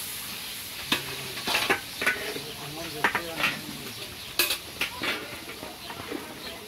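A long metal ladle stirring and scraping through thick curry in a large iron karahi, with a series of sharp scrapes and clanks against the pan over the sizzle of the cooking.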